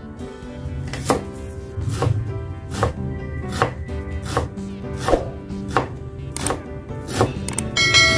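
Large kitchen knife chopping fresh dill on a wooden cutting board in slow, even strokes, about one every three-quarters of a second, starting about a second in. A short, bright ringing chime comes near the end.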